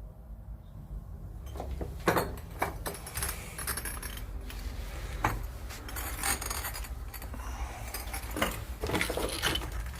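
Footsteps scuffing over loose rubble: irregular clinks, scrapes and knocks over a low steady rumble.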